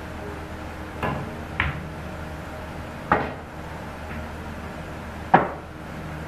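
Pool cue striking the cue ball about a second in, followed by three more sharp clacks of billiard balls and cue on the table, the last one the loudest.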